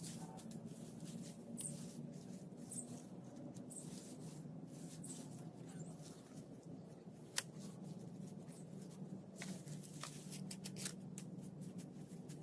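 Dry grass stalks rustling and crackling as they are handled and gathered into bundles by hand, with one sharp click about seven seconds in.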